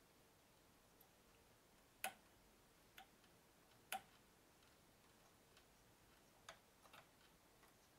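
Near silence broken by a handful of small, sharp clicks at uneven intervals. The two loudest come about two seconds apart, with weaker ones near the end.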